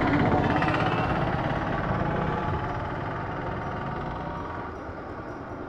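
Vehicle engine running nearby, loudest about a second in and slowly fading away.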